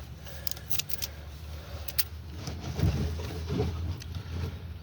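A few sharp metallic clicks and knocks as a skid steer's side-mounted oil filter is worked loose, over a steady low rumble.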